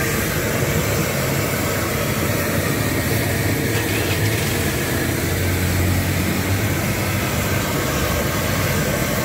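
Steady roadside traffic noise with an engine idling close by. A low hum grows stronger in the middle.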